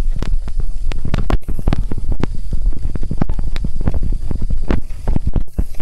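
Stylus tapping and scraping on a tablet screen during handwriting: a fast, irregular run of loud clicks and knocks with a low rumble underneath.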